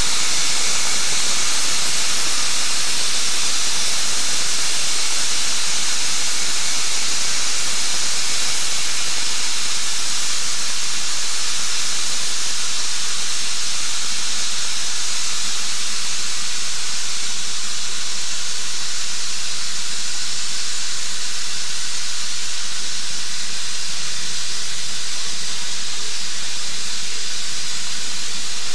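Steam hissing steadily from ex-Chicago & North Western No. 1385, a 4-6-0 steam locomotive standing at rest, with an even hiss and no exhaust beat.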